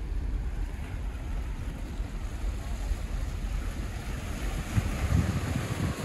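Wind buffeting the microphone with a steady low rumble, over the wash of small Black Sea waves breaking on the rock boulders of the shore, which grows louder near the end.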